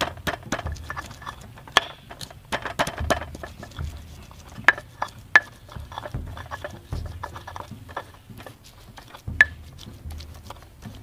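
Garlic, ginger and galangal being ground by hand into a spice paste: an irregular run of knocks and scrapes, several of the harder strikes giving a short ring.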